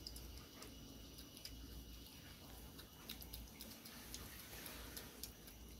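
Quiet eating sounds: a few faint, scattered clicks and smacks of children chewing fried chicken and rice eaten by hand, over a low steady room hum.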